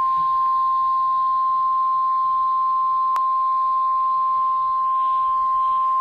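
NOAA Weather Radio's 1050-hertz warning alarm tone: a single steady, unbroken tone over a faint hiss, with one brief click about three seconds in. The tone announces a tornado warning that is about to be read.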